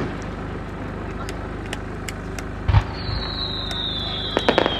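Fireworks: one deep boom of a shell bursting about halfway through, then a long thin whistle that falls slowly in pitch, and a quick cluster of sharp crackling pops near the end, over a steady low background rumble.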